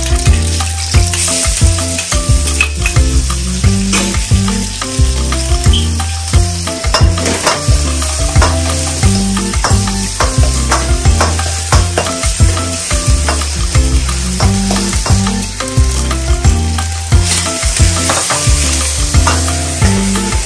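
Onions sizzling as they fry in a hot wok on a gas burner, with a metal spoon clicking and scraping against the wok as they are stirred; the sizzling grows louder near the end as flames flare up in the wok. Music with a steady bass line plays underneath.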